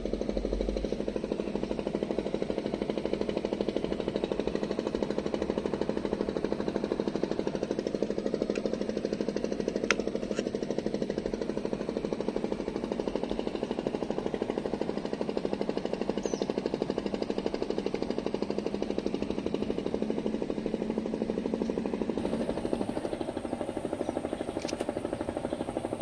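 A small engine running steadily with a rapid, even chugging, and a single sharp click about ten seconds in.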